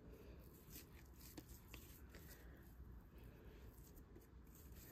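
Near silence, with faint soft rubbing and a couple of small ticks about a second and a half in, as hands squeeze and knead soft butter-cookie dough.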